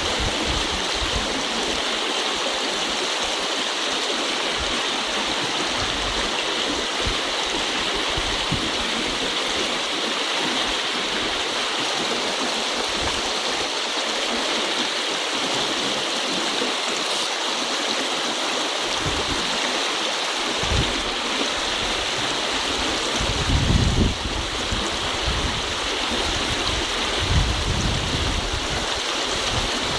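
Shallow river water rushing steadily over stones on a riffle, an even hiss-like flow. A few brief low bumps come in the last third.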